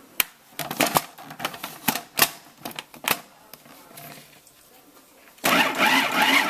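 Sharp plastic clicks and knocks as a food processor's bowl and lid are fitted back on. About five seconds in, the food processor's motor starts suddenly and runs steadily, churning a thick corned-beef and cream-cheese mixture.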